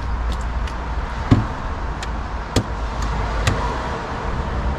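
Several light knocks and clicks from handling the removed inner door panel of a VW Golf Mk5 rear door, the loudest a dull thud about a second in, over a steady low rumble.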